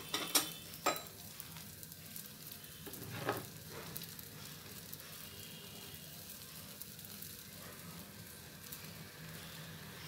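Paratha dough sizzling faintly on a hot oiled flat griddle (tawa), a steady light hiss as its first side cooks. A few sharp knocks in the first second and another about three seconds in.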